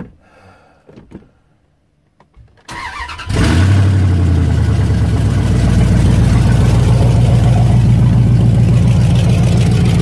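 Truck engine with newly fitted exhaust headers cranking briefly about three seconds in, then catching and settling into a loud, steady idle. This is its first start after the header install.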